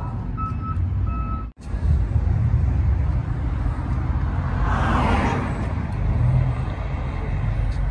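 Steady low rumble of truck engines running, with a brief hiss-like swell of noise about five seconds in.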